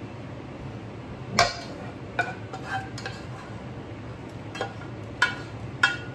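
A spatula scraping and knocking against the inside of a pot as the last of a thick chili is scraped out, making about seven sharp clinks, some ringing briefly, over a steady low hum.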